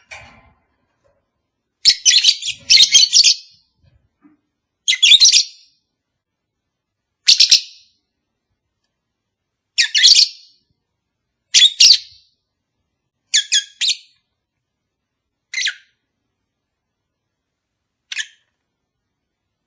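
Lovebird calls: short, shrill, harsh chirps and squawks in separate bursts every couple of seconds, some doubled, growing fainter near the end.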